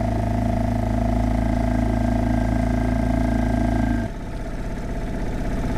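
A small outboard motor runs steadily while the boat is worked through sandbar shallows. About four seconds in its sound drops and turns lumpier and pulsing, then slowly builds again.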